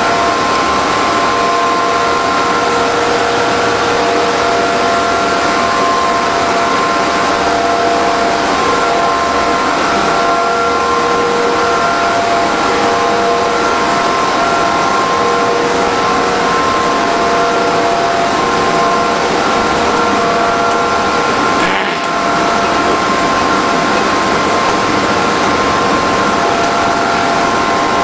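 PVC sheet extrusion line running: a loud, steady industrial machine din with several steady whining tones from its motors and drives.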